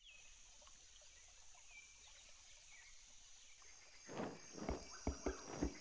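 Faint rainforest ambience: a steady high-pitched insect drone with a few short, falling bird chirps. About four seconds in, a run of sharp, irregular knocks starts and grows louder.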